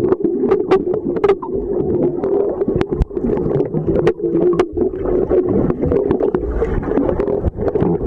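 Muffled underwater sound picked up by a submerged camera while snorkeling: a steady low drone with scattered sharp clicks and knocks from water movement and swimmers close by.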